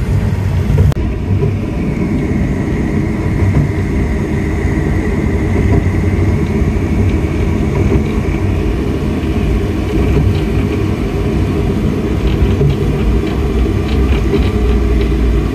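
Light-rail tram running along its track, heard from inside the car: a steady low rumble, with a faint high whine that swells and fades over a few seconds in the first half.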